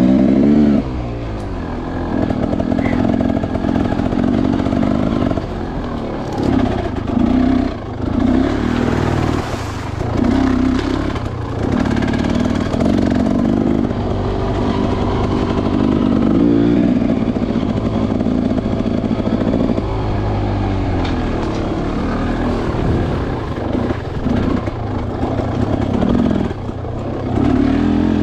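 Dirt bike engine being ridden over a trail, its pitch rising and falling with the throttle, with brief dips where the throttle is closed every few seconds.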